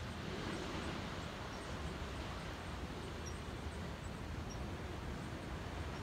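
Wind buffeting the microphone as a fluttering low rumble over a steady wash of distant ocean surf, with faint high ticks here and there.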